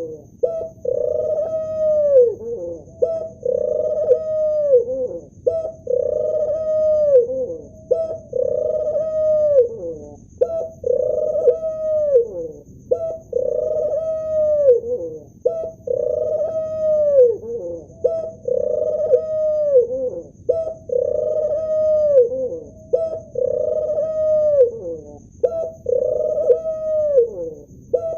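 Male ring-necked dove cooing over and over: a low held coo that drops in pitch at its end, repeated about once every second and a half.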